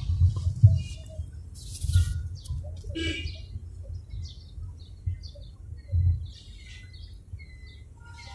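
Low rumble of a car driving, with a few heavier low thumps, about a second in and again near six seconds. Short, scattered bird chirps sound over it.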